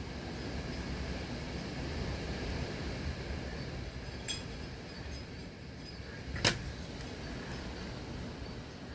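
Hurricane wind gusting in a steady rushing noise, with one sharp knock about six and a half seconds in and a fainter click a couple of seconds before it.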